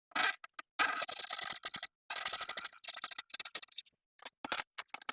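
Hand saw cutting wood: a run of rasping back-and-forth strokes, each about half a second to a second long, turning to shorter strokes near the end.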